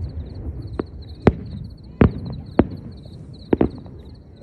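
Fireworks going off: a string of sharp bangs, roughly one every half second to second, over a low rumble. A steady high pulsing chirp runs behind them.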